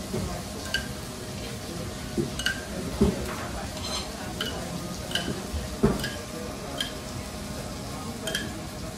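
Metal spoon clinking against the rim of a small stainless steel sauce pot, a short ringing tick roughly every second, over a steady faint sizzle. Two duller thumps, the loudest sounds, come about three and six seconds in.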